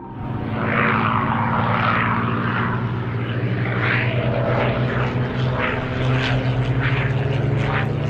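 Supermarine Spitfire in flight, its V12 piston engine running steadily with a rushing sound of propeller and air that swells and fades. The engine note shifts slightly about halfway through.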